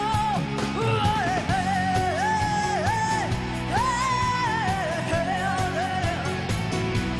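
Live rock band with a woman singing long, high held notes with vibrato over drums and guitar. The voice breaks off a little after six seconds and the band plays on.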